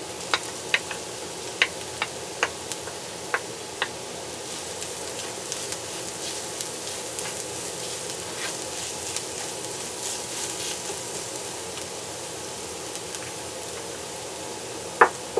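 Ginger and garlic sizzling steadily in hot oil in a nonstick frying pan as they are stirred with a wooden spatula. The spatula gives sharp taps against the pan, several in the first few seconds and two louder knocks near the end.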